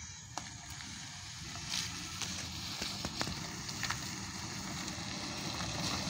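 A car and a cow-drawn cart coming closer over a rough, potholed dirt road: a noise of tyres and wheels on the gravelly surface that grows louder, with scattered clicks and knocks.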